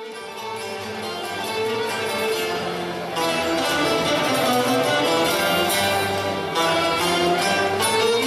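Orchestra playing, strings to the fore; the music grows louder about three seconds in.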